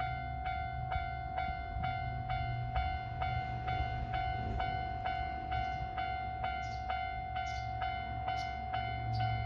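Japanese level-crossing warning bell ringing its repeated electronic clang, about two strokes a second, over the low rumble of an electric train at the crossing. Short hissy scrapes come in about two-thirds of the way through.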